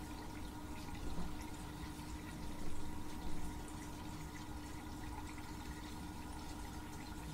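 Aquarium water trickling and dripping steadily, as from a filter return, over a constant low electrical hum from the tank's pump. A few soft bumps rise above it between about one and three and a half seconds in.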